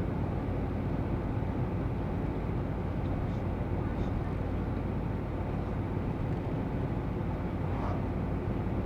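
Steady engine and road noise inside the cab of a moving GAZ Sobol 2752 van, with a low even hum.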